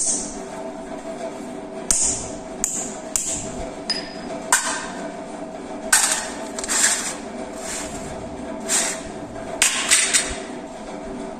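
A metal hand tool knocks onto pieces of baked terracotta clay on a hard tiled counter, cracking them in a series of separate sharp knocks. From about halfway in, the clay shards clatter and clink onto a steel plate, with a steady hum underneath.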